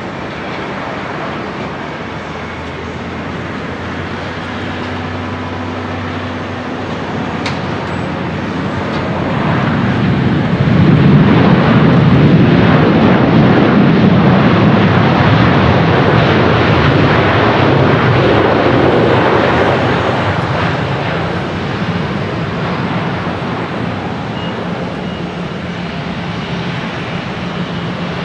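Jet engine noise from a Boeing 787-8 Dreamliner's Rolls-Royce Trent 1000 engines as the airliner rolls out on the runway just after touchdown. The noise swells to its loudest about ten seconds in, holds for about ten seconds, then eases off.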